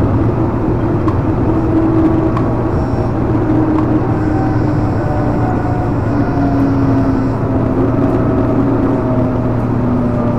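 Light-rail car heard from inside while moving: a steady low rumble and hum, with a motor whine that slowly falls in pitch as the train slows into a station.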